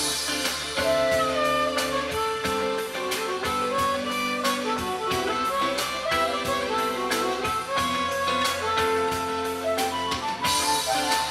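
Music: an instrumental melody moving in clear, separate notes over a steady drum beat.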